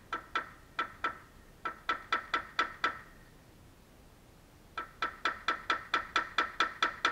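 A ratchet clicking rapidly in two runs, about four to five clicks a second, each click with a short metallic ring. A pause of about two seconds separates the runs.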